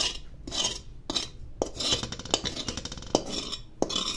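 A spatula scrapes and taps around the inside of a kadhai in quick, repeated sweeps, spreading melted ghee over the pan.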